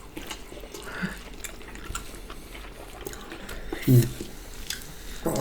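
Wet chewing and mouth sounds of people eating boiled pork with bamboo shoots by hand, with small scattered clicks. A brief murmur of voice comes about four seconds in.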